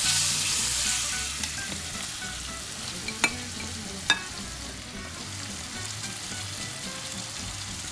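Cooked beef pieces tipped into hot coconut oil and masala in a non-stick pan: a loud sizzle as the meat hits the oil, easing after about a second to a steady sizzle. Two sharp spatula taps come a little after three and four seconds in.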